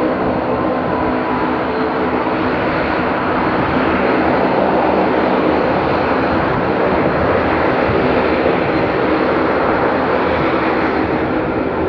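Bombardier airliner's engines running during its takeoff run, heard across the airfield as a loud, steady drone with several steady tones in it.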